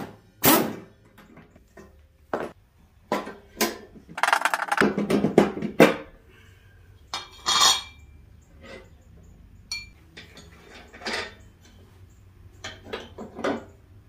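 Scattered metal clanks and clinks as parts and tools are handled on a steel mower deck while the pulley and nut come off a deck spindle, with a denser, louder clattering stretch about four to six seconds in.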